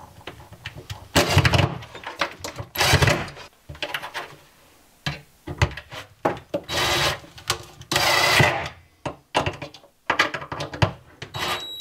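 DeWalt cordless driver running in several short bursts as it drives screws through the steel mounting plate of a European cabinet hinge into plywood, with small knocks and clicks in between.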